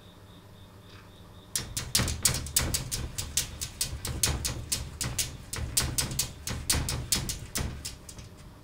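A calico cat scratching and pawing at the glass pane of a wooden sliding door with its claws, in rapid scraping strokes about five a second. It starts about a second and a half in and stops shortly before the end, with a low rattle of the door under the strokes.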